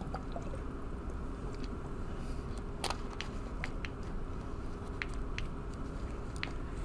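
Room tone: a steady low hum with a few faint, scattered clicks, the sharpest about three seconds in.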